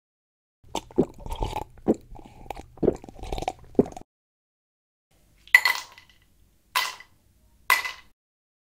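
A person quickly gulping down a mug of water close to the microphones, a run of swallows over about three seconds. Then ice cubes drop into a glass: three ringing clinks about a second apart.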